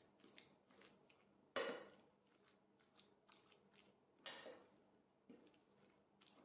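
Faint sound of a fork mashing ricotta with icing sugar in a ceramic plate: soft scraping with light clinks of the fork on the plate, the sharpest about a second and a half in and another just past four seconds.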